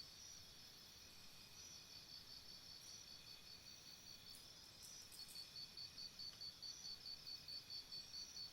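Faint jungle insects chirping: a high, pulsed call of about four chirps a second, softer at first and stronger from about halfway in, over a steady high insect drone, with a few faint ticks in the middle.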